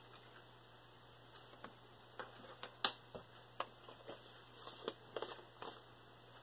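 Light clicks and taps of a plastic spice jar and plastic measuring spoon being handled, with one sharper click about three seconds in and a cluster of small ticks near the end.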